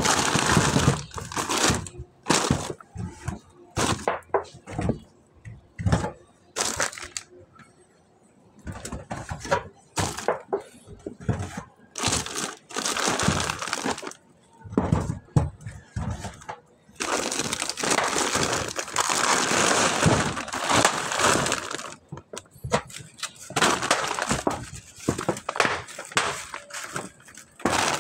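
Plastic bag rustling and crinkling as spiky kamansi (breadnut) fruits are packed into it, with scattered sharp cracks and knocks over the first half and long spells of steady crinkling in the second half.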